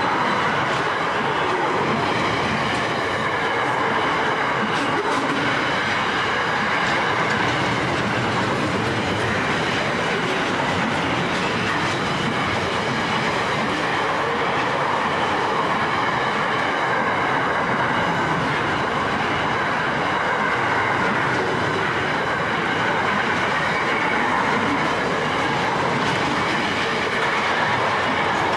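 Loaded intermodal container wagons of a long freight train rolling steadily past close by: a continuous rolling rumble of steel wheels on the rails, with faint high ringing tones over it.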